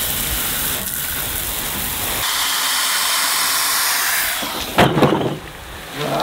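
Water from a garden hose splashing into a steel wheelbarrow over a stack of fire bricks, soaking them before they are laid in refractory cement. It makes a steady spraying hiss that turns brighter about two seconds in and stops a little after four seconds, followed by a couple of sharp knocks.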